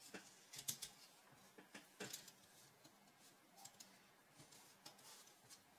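Faint, irregular clicks of LEGO Technic plastic pieces being pressed and snapped together by hand, a few scattered ones over the stretch.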